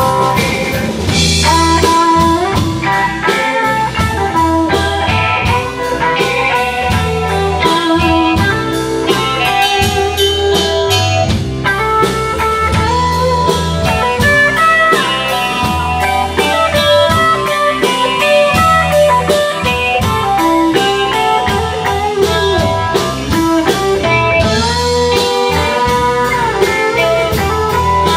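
Live blues band playing an instrumental passage: electric guitars over electric bass and a drum kit, loud and steady.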